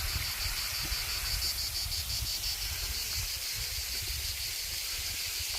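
Cicadas droning in a steady, rapidly pulsing chorus, with a low rumble on the microphone underneath.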